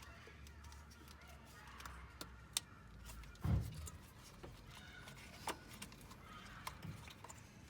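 Scattered clicks and light knocks of hand tools and parts being worked in an engine bay during a spark plug and ignition coil change, with one dull thump about three and a half seconds in.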